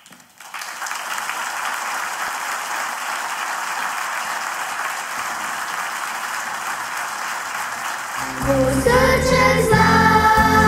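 An audience applauding steadily in a hall for about eight seconds. Near the end a band comes in with a low bass line, and children start singing over it.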